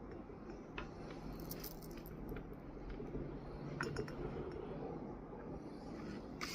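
A few faint, scattered clicks and light clinks over a low steady hum.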